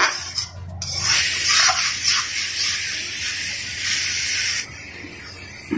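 Spiced onion-tomato masala paste sizzling in hot oil in a metal kadai while a steel spatula stirs and scrapes it against the pan, as the masala is fried down. The sizzling hiss swells about a second in and drops away near the end.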